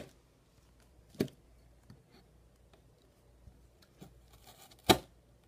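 A small sharp knife working on an animal cracker: sharp clicks as the blade meets the cookie and the surface beneath, a soft scraping, then a louder crack about a second before the end.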